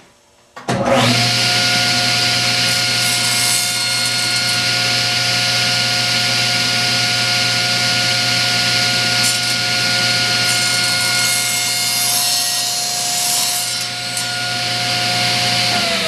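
Table saw switched on about a second in, its motor and blade running at a steady whine. In the second half the spinning blade cuts through a pine board at an angle, adding a rasping hiss over the motor.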